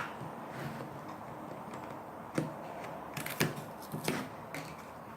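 Plastic toy packaging being handled and opened by hand: scattered clicks and crinkles, with a sharp click at the start and a cluster of them a few seconds in.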